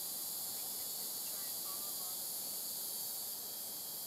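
Steady, high-pitched insect chorus, with a few faint short chirps.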